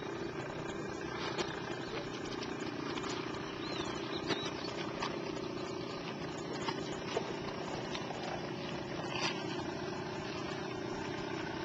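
Quad bike (ATV) engines idling steadily, a constant hum with a few small clicks.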